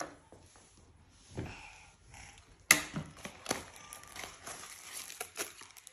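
Scattered clicks and knocks of objects being handled, the sharpest one about two and a half seconds in.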